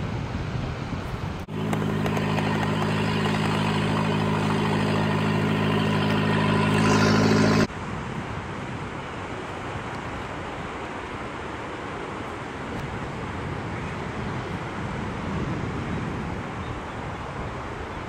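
A steady engine drone with an even low hum, starting about a second and a half in and cutting off abruptly about eight seconds in. After that there is a steady wash of surf and wind noise.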